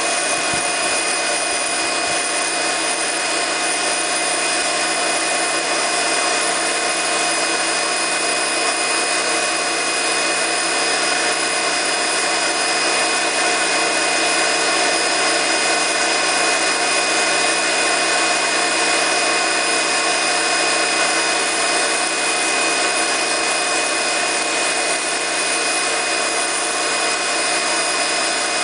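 Electric pressure washer running without a break, its motor and pump giving a steady high whine while the jet sprays the paving slabs.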